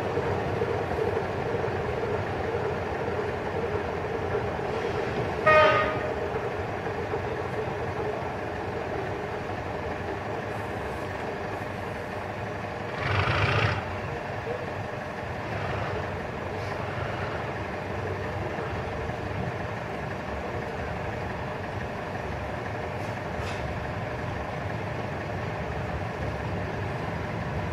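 Diesel locomotive running steadily in the distance, with one very short horn toot about five seconds in and a brief louder rushing noise about thirteen seconds in.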